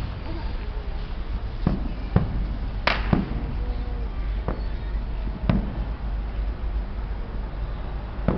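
Fireworks going off: about half a dozen separate bangs and pops over the first six seconds, the loudest about three seconds in, over a steady low background rumble.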